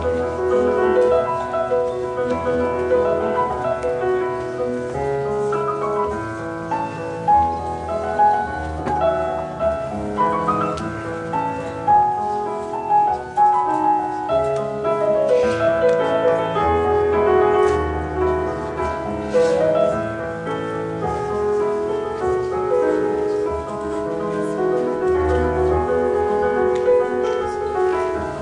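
Solo grand piano playing a classical piece, with rising and falling runs over deep held bass notes.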